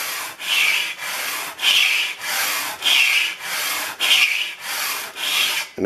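A razor knife blade, held in a wooden scraper block, is rubbed back and forth over sandpaper in even strokes about two a second, every other stroke louder. This raises a burr on the blade's edge so it will scrape.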